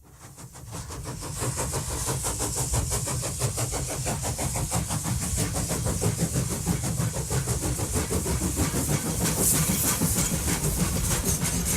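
A steady mechanical rumble with hiss and a fast, dense clatter, fading in over the first second or two.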